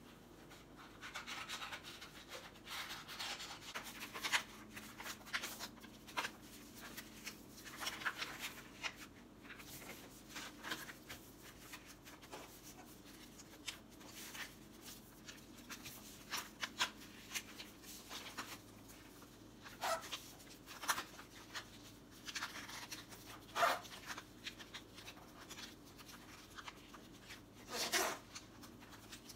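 Paper rustling and crinkling as a printed sheet is cut out with small scissors and folded by hand into a paper fortune teller, with sharper creasing sounds every few seconds.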